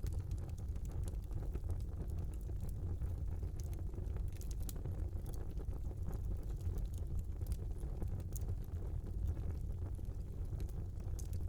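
Fire burning in a small fireplace: a steady low rumble of the flames with scattered sharp crackles and pops.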